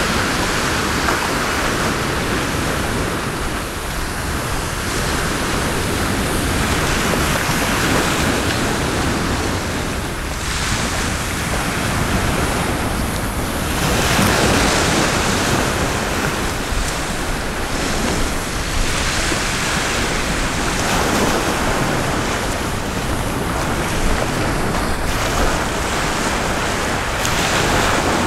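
Sea waves washing on the shore, the wash swelling and easing every few seconds, with wind buffeting the microphone.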